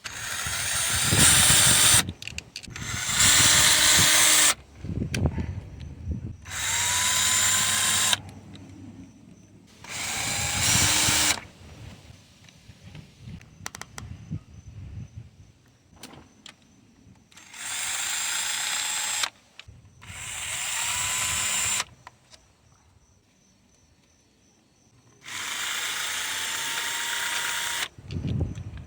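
Cordless power tool, such as a drill or electric ratchet, running in about seven short runs of a second or two each, backing out the 10mm valve cover bolts and nuts one after another. Each run ends with a short whine as the motor spins down, and small clicks of metal parts fill the pauses.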